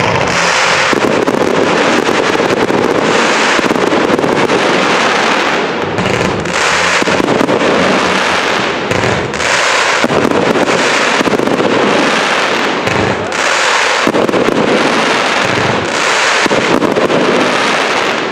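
Fireworks display: a dense, unbroken barrage of bursts and bangs, swelling and easing about once a second.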